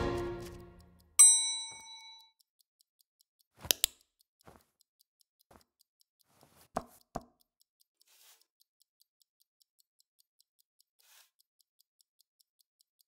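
Background music dies away, then a single bell-like ding rings out and fades over about a second. Two pairs of short, soft clicks follow a few seconds apart, and then near silence.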